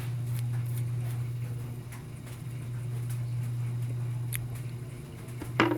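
Faint clicks and taps of microphone parts being handled during reassembly, with one sharper click near the end, over a steady low hum.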